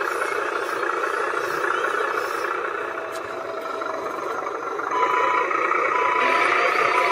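Radio-controlled model truck's electric drive and gears whirring steadily as it drives along. About five seconds in the sound gets louder and a short beep starts repeating about once a second.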